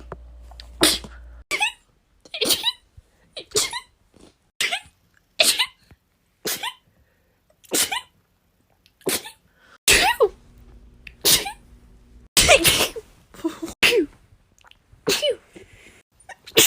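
A person sneezing over and over in rapid succession: more than a dozen short, sharp sneezes, about one a second.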